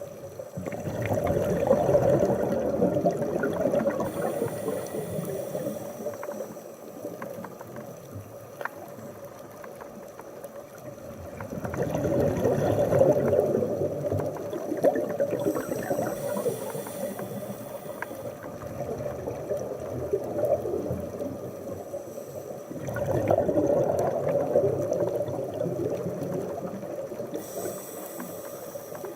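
Scuba diver breathing through a regulator underwater: three long gurgling rushes of exhaled bubbles about ten seconds apart, each followed by a short hiss of the next breath drawn in.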